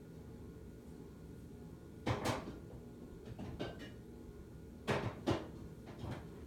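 Ceiling fan with a cast-iron spinner motor running with a steady low hum, broken by several sharp knocks and clicks, mostly in pairs, about two, three and a half, five and six seconds in.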